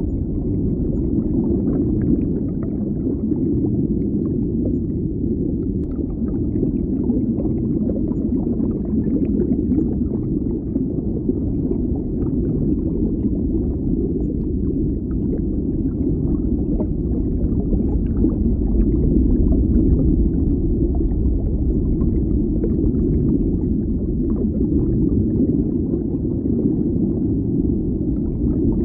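Underwater water-bubble ambience: a steady deep, muffled rumble of water with constant small bubbles popping and trickling through it.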